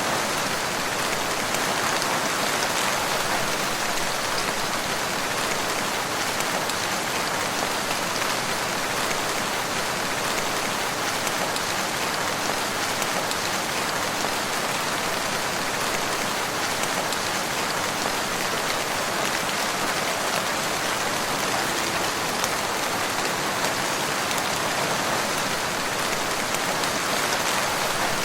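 Steady rain falling, an even hiss of many drops with no gusts or thunder.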